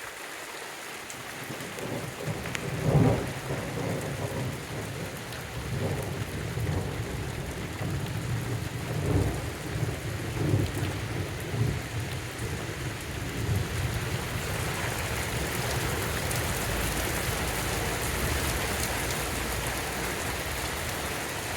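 Heavy rain falling steadily with thunder: a loud clap about three seconds in, then repeated rolling rumbles that fade out, leaving the rain.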